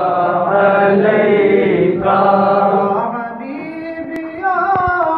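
A man's voice chanting a salaam, a devotional salutation, in long held melodic phrases through a microphone, with a new phrase starting about two seconds in and another near the end.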